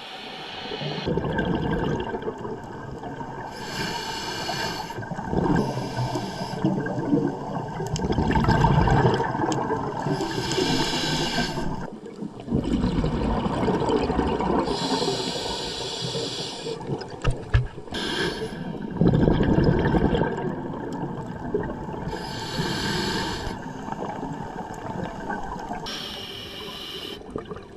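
Scuba diver breathing through a regulator, recorded underwater: a short hissing inhale every few seconds, each followed by a longer gurgling rush of exhaled bubbles.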